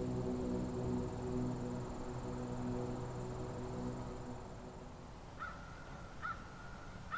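A low, steady hum with a fixed pitch fades out about five seconds in. Then come three short bird calls, about a second apart.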